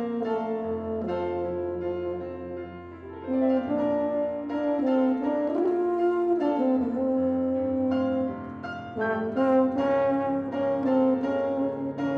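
Tuba and piano duo: the tuba plays a melody of held notes that change pitch every second or two, over repeated chords on a grand piano, with a low bass note entering about a second in.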